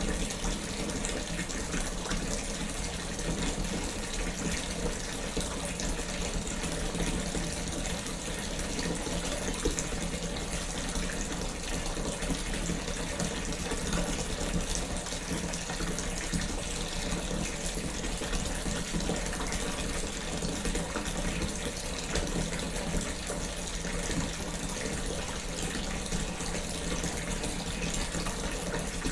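Bath tap running steadily, water pouring into a filling bathtub with an even, unbroken rush.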